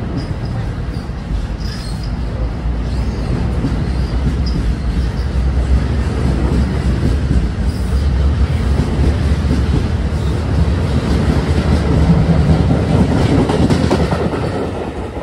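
NJ Transit Multilevel bilevel commuter cars rolling past close by: a steady low rumble of wheels on rail that builds louder, then falls away near the end as the rear cab car passes.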